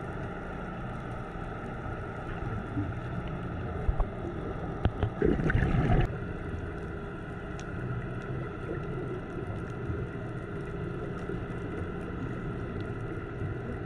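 Underwater ambience picked up through a GoPro's dive housing: a steady low rumble and faint hum, broken about five seconds in by a brief burst of bubbling from a scuba diver's exhaled regulator bubbles.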